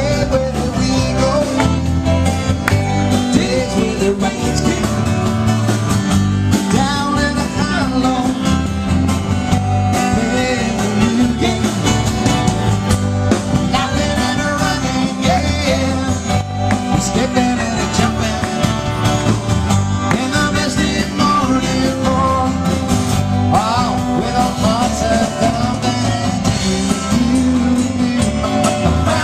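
Live band playing a country-style song: a man singing over a strummed acoustic guitar, electric bass and drums.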